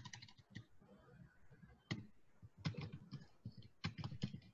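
Faint, irregular keystrokes on a computer keyboard as a few letters are typed.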